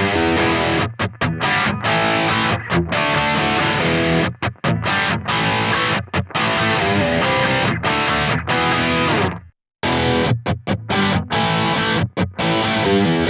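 Distorted electric guitar, a Paul Reed Smith SC245 played through a Kemper profiling amplifier using a crunch profile of an ENGL Savage 120 amp head. It plays rhythm riffs with many short stops, falls fully silent for a moment about two-thirds of the way through, then starts again.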